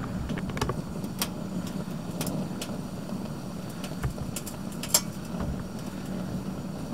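Ooni gas burner's two big jet burners alight inside the Ooni Karu pizza oven, giving a steady hum of burning gas. Scattered sharp clicks sound over it, the loudest about five seconds in.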